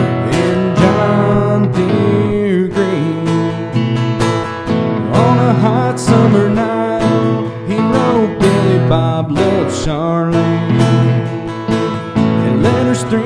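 Country song played live on a strummed steel-string acoustic guitar, with a Telecaster-style electric guitar picking lead lines that bend up and down in pitch.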